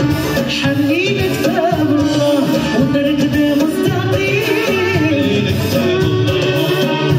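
Live band music: a woman singing with violin accompaniment, heard through the stage sound system.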